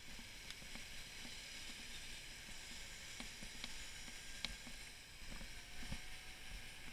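Bicycle rolling over cobblestone paving: a steady hiss of tyre and road noise, with scattered sharp clicks and knocks as the bike jolts over the setts.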